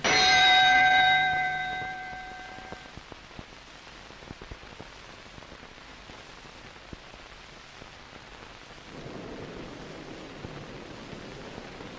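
Boxing ring bell struck once, its ringing dying away over about two seconds, followed by a steady hiss with faint scattered ticks that grows a little louder about nine seconds in.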